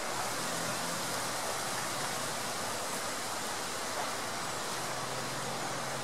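The Soča, a fast alpine river, flowing: a steady, unbroken rush of water.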